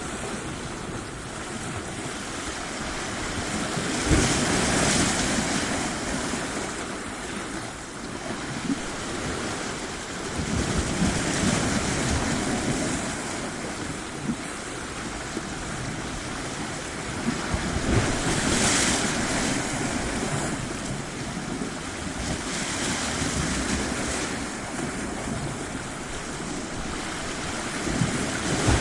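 Sea surf washing onto a shore, a steady rush that swells as a wave breaks about every five to seven seconds, with wind buffeting the microphone.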